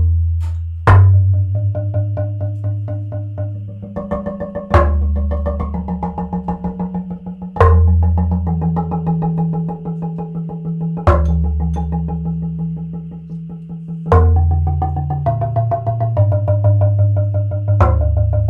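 Improvised percussion on a low wooden box: a fast roll of quieter strokes, with a heavy accent hit every three to four seconds that leaves a deep, slowly fading boom and a few ringing pitched tones.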